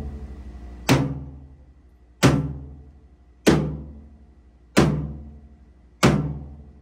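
Sledgehammer blows on the heavy steel plate of a CAT 637 scraper apron: five hard strikes about a second and a quarter apart, each ringing and dying away before the next.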